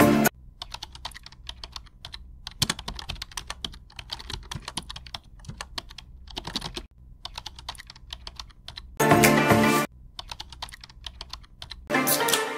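Computer keyboard typing: rapid, irregular key clicks. A short burst of music cuts in about nine seconds in, and music returns near the end.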